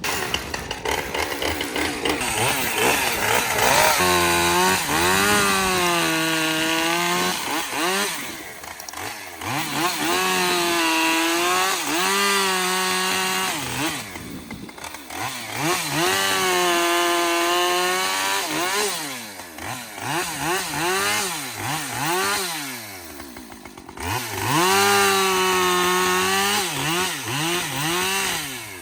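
Ported two-stroke chainsaw running hard: the engine is revved up and held at high revs four times, dropping back and blipping between each.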